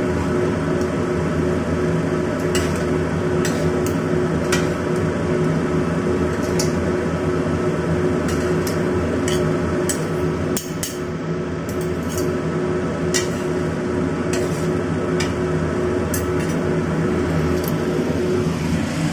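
Metal spatula and tongs clinking and scraping against a stainless steel wok as rice vermicelli is stir-fried, with scattered irregular clinks over a steady hum with a low held tone.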